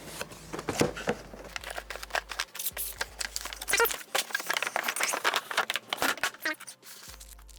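Crinkly plastic packaging being handled and torn open by hand, a rapid irregular run of crackles and rustles that dies away near the end.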